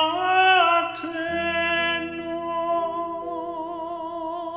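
Male cantor singing the final phrase of a traditional High Holiday prayer chant. A short rising figure leads into a long held note with a slow vibrato. A sustained piano chord comes in beneath the voice about a second in.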